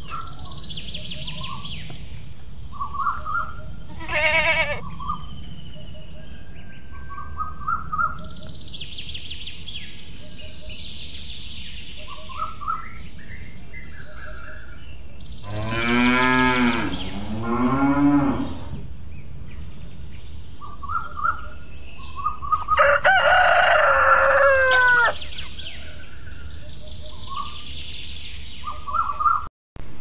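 Farmyard ambience with small birds chirping throughout. About halfway through, a cow moos twice, and a few seconds later a rooster crows loudly.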